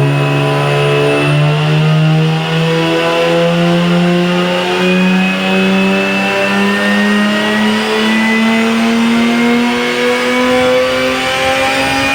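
Turbocharged V6 Holden Commodore engine pulling hard under a long acceleration, its pitch climbing slowly and evenly, with a thin high whine rising alongside.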